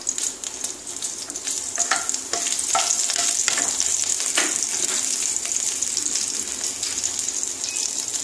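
Whole garam masala spices (cinnamon, cardamom) and chopped green chillies sizzling in hot vegetable oil in a non-stick kadai: a steady crackling that grows louder about two seconds in. A few light knocks come from a wooden spatula stirring in the pan.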